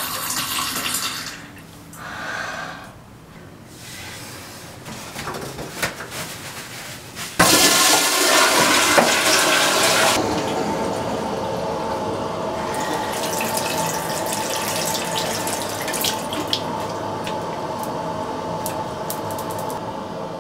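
Toilet flushing: a sudden loud rush of water about seven seconds in that lasts a few seconds, then the tank refilling with a steady hiss.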